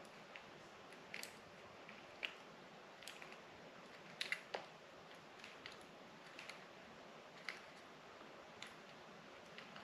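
Faint, irregular small clicks and light metallic taps of a MingYang W300L baitcasting reel's parts being handled and worked apart in the fingers, with a brief cluster of sharper clicks about four seconds in.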